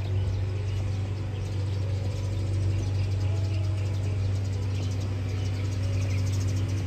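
Scooter engine running steadily, a constant low hum with light bird chirps above it.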